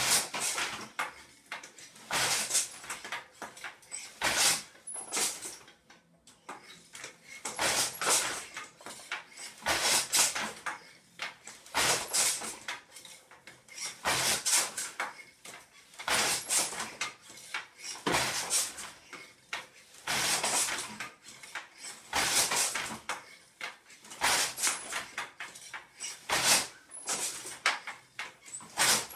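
Weaving on a Schacht Mighty Wolf wooden floor loom: the shuttle passes through the shed and the beater is pulled against the cloth, with the loom's wooden frame and shafts knocking and rattling. The cycle repeats about every two seconds, each pick a clatter with lighter clicks in between.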